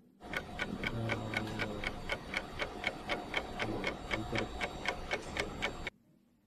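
Ticking-clock sound effect, about four even ticks a second, starting and cutting off abruptly, edited in as a 'thinking' cue. A low hum sounds briefly twice under the ticks.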